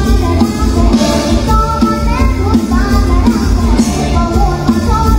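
Live mor lam band music with a heavy, steady bass beat under a melody that slides up and down.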